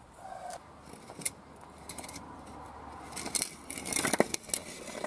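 Stacked wooden blocks knocking and scraping against each other as they are pulled out from under a car raised on a scissor jack. This gives a burst of sharp wooden knocks and clatter in the last two seconds, after a short squeak and light clicks near the start.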